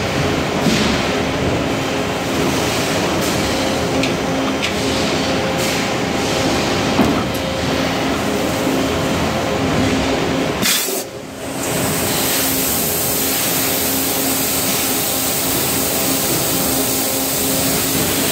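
Electric extrusion blow moulding machine running while making plastic detergent bottles: a steady mechanical hum with a few light clicks and knocks. About eleven seconds in there is a short sharp burst, a brief dip, and then a steady high hiss.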